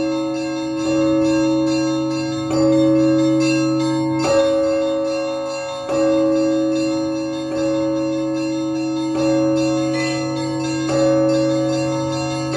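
Russian Orthodox church bells rung by hand: a chord of several bells struck together about every second and a half, seven times, each stroke ringing on into the next over a constant low hum. Smaller, higher bells change their notes near the end.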